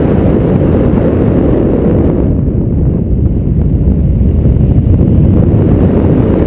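Wind buffeting a GoPro's microphone in paragliding flight: a loud, steady, low rush of airflow noise, its hiss thinning briefly in the middle.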